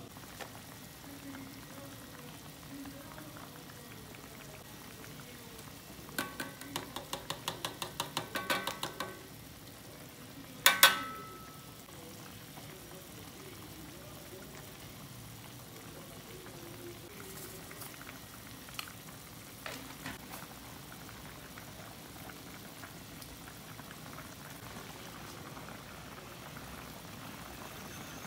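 Sauce with vegetables simmering and bubbling steadily in a pan. About six seconds in comes a quick run of light metal clicks from the spatula in the pan, then a loud double clank of metal on the pan with a short ring.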